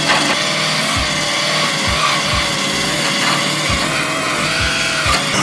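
Die grinder with a small abrasive disc grinding the steel body of a Toyota AE86 to strip rust and paint. It runs at a steady whine that wavers slightly in pitch as the disc bears on the metal.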